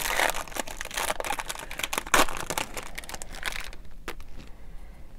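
A 2018 Topps Gallery baseball card pack's wrapper being torn open and crinkled by hand. It makes a dense crackle for about three and a half seconds, then goes quieter with a few light clicks.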